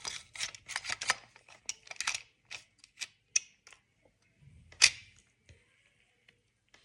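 Quick run of sharp clicks and taps from small hard plastic objects being handled and worked, about four or five a second, thinning out after three seconds, with one louder click about five seconds in.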